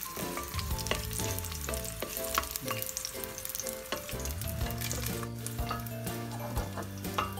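Garlic cloves and bay leaves sizzling and crackling in hot oil in a stainless steel pot, stirred with a wooden spoon, with background music underneath.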